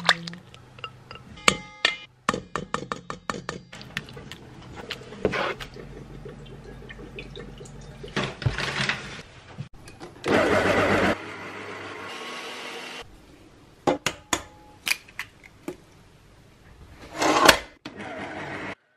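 Kitchen baking sounds: a quick run of metal utensils clicking and tapping against a bowl and board. Then an electric stand mixer with a balloon whisk runs for a few seconds, loud at first and then steadier, with scattered knocks and another short loud rush near the end.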